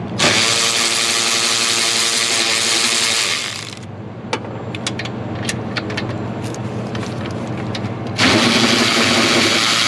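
Power tool motor spinning a 1/4-inch drive 13 mm swivel socket to back out a bolt: a run of about three and a half seconds, scattered clicks, then a second shorter run near the end.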